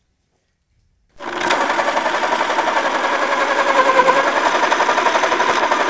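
A pencil sharpener grinding a pencil: a loud, fast, rippling whir that starts about a second in.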